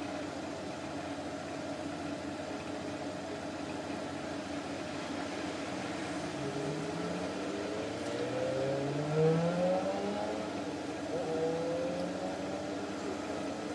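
Steady hum of a car heard from inside its cabin. From about six seconds in, a car's engine accelerates, its note rising several times in steps as it goes up through the gears, loudest a little past the middle.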